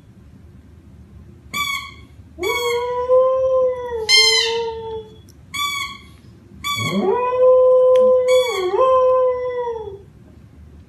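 A Samoyed howling in a series of calls: two short yelps and two long, level howls. The last howl rises at its start and dips briefly in pitch near the end.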